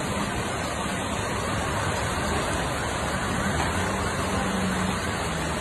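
Heavy rain and floodwater rushing along a street: a steady hiss of water, with a faint low hum underneath.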